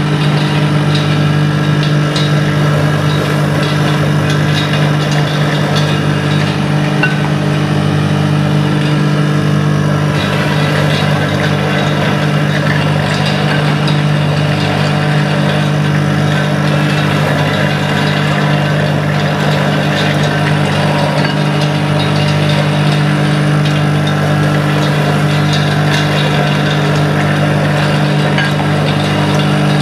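Maksindo MKS-SYB66 juice residue separator's electric motor running steadily with a low hum as it grinds soybeans and separates the pulp from the soy milk.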